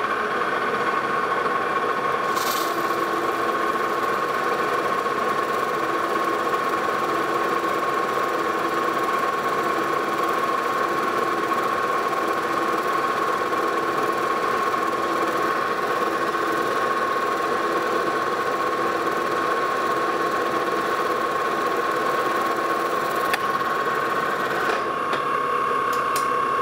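Metal lathe running with a steady whine as a floating scissor-type knurling tool rolls a coarse knurl into the turning workpiece on a deeper second pass. There is a short hiss about two seconds in, and part of the sound drops away near the end as the lathe stops.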